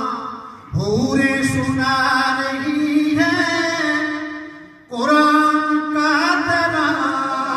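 A man reciting devotional verse in a melodic chant into a microphone, holding long notes in drawn-out phrases, with a short break for breath just after the start and another about two-thirds of the way in.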